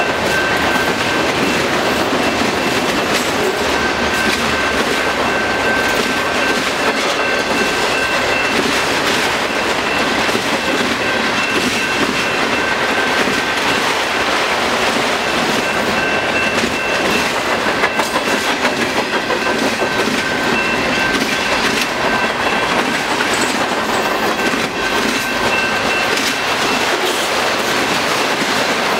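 Freight train cars, autoracks among them, rolling past on steel wheels: a steady loud rumble with clickety-clack over the rail joints. A thin high ringing tone comes and goes through it.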